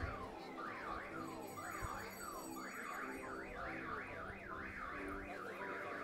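Car alarm sounding: a rising electronic whoop repeated about four times a second, with short breaks in the first half.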